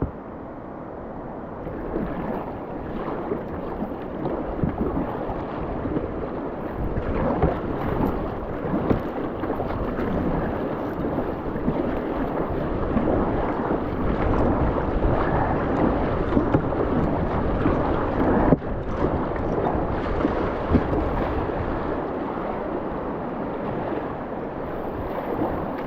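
Rushing whitewater from a river rapid, growing louder about two seconds in, with wind buffeting the microphone. A single sharp knock sounds about two-thirds of the way through.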